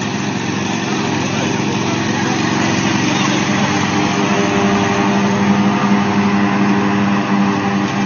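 Ride-on lawn tractor's engine running steadily as it drives across the grass, its note growing a little stronger about halfway through.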